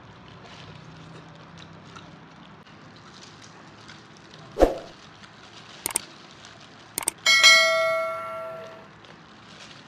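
A thump about four and a half seconds in, a few sharp clicks, then a single bell-like metallic ring that dies away over about a second and a half.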